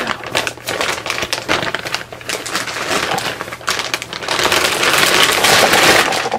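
Thin clear plastic bag crinkling and rustling as a folded comforter is pulled out of it, with a louder, denser rustle for about two seconds near the end.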